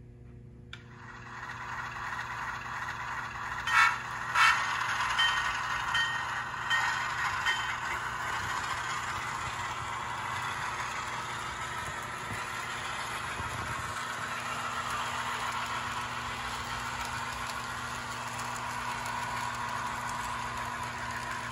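HO-scale model freight train, a diesel locomotive pulling freight cars, rolling steadily along the track with a continuous wheel-on-rail clatter and a faint steady hum. There are a couple of sharper clicks about four seconds in.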